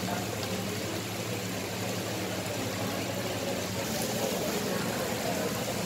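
Steady heavy rain pouring down, an even rushing hiss, with a steady low hum underneath.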